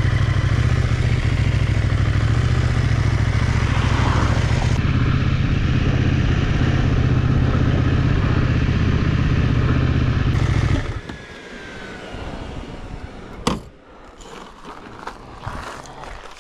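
CFMOTO 800NK motorcycle running under way with a loud, steady low rumble, which cuts off abruptly about eleven seconds in. Then comes a quieter stretch of scattered clicks and one sharp knock.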